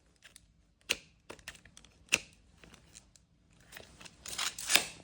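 Small hand tools being handled: a few sharp separate clicks, then a stretch of rasping and scraping about three and a half seconds in that is loudest near the end.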